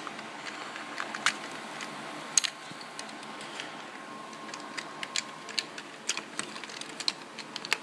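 Irregular sharp plastic clicks and taps from an Xbox 360 controller's shell being handled and worked apart.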